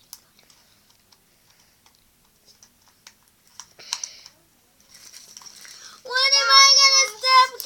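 Light clicks and rustles of small plastic toy pieces being handled, then about six seconds in a young child's high-pitched voice breaks in with loud held notes.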